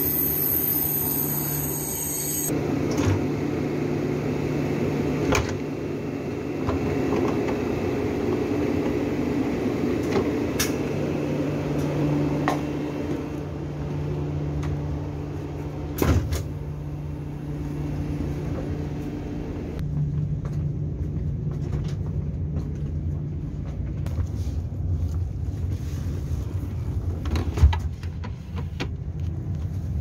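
KTX high-speed train: a steady low hum and rumble, first beside the train on the platform and then inside the carriage, with a few sharp knocks and clicks, the loudest near the end.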